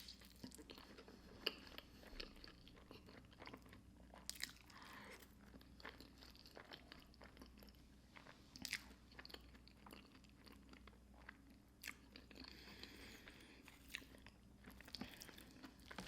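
Faint chewing of a mouthful of fettuccine alfredo topped with hot Cheetos crumbs, with scattered soft clicks and smacks from the mouth.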